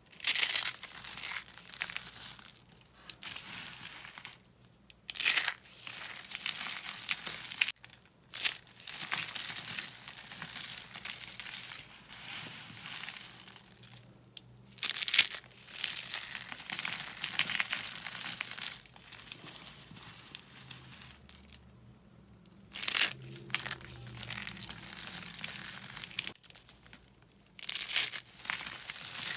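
Dry soap being crushed, crisp crunching and crumbling in several bouts with short pauses between them, each bout starting with a sharp crunch.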